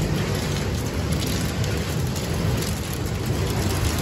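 Hail and heavy rain pelting a wooden balcony deck and window glass: a dense, steady patter with a low rumble underneath.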